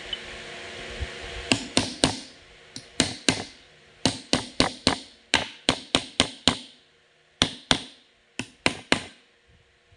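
Sharp metal-on-metal knocks and taps from a forklift transmission's clutch drum assembly as a hand works its parts down onto the shaft. There are about twenty of them in irregular runs, starting about a second and a half in and stopping near the end.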